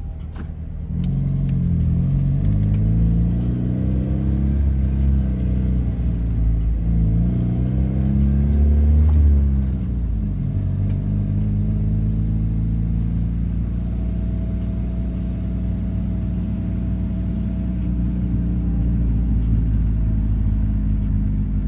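Mazda Miata's four-cylinder engine pulling away: it revs up, drops as it shifts, revs up again more strongly about nine seconds in, then eases off and runs steadily at a cruise.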